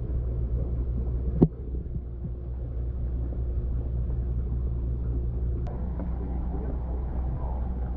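Steady low mechanical hum and rumble with a sharp click about a second and a half in, after which the hum drops a little.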